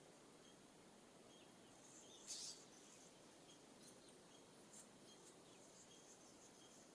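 Quiet outdoor background with faint, scattered high chirps of small birds, and one brief louder rustling burst about two and a half seconds in.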